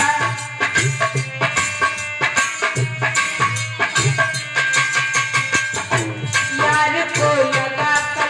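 Indian devotional music: a sustained melody line over hand drums keeping a steady beat, with no clear singing.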